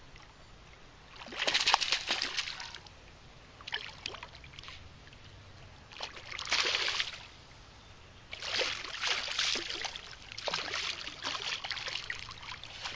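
Hooked largemouth bass splashing at the water's surface in several bursts, the loudest about a second and a half in.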